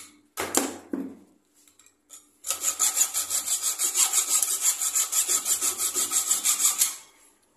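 Hacksaw cutting a steel pressure-cooker stem clamped in a bench vise: two short strokes near the start, a pause, then rapid, steady back-and-forth sawing from about two and a half seconds in that stops shortly before the end. The steel rod is being cut only partway through so that it can be snapped off.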